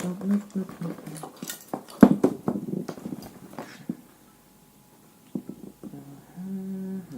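A man humming to himself with short wordless tones, over clicks and rustles of cables and small parts being handled.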